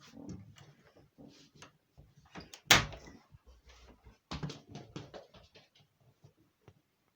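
Irregular knocks and rustles in a small room, with one loud sharp thump about three seconds in and a quick run of knocks a little later.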